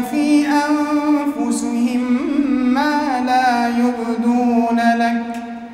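A male imam's melodic Quran recitation: one long drawn-out phrase of held notes that bend and waver up and down, fading near the end.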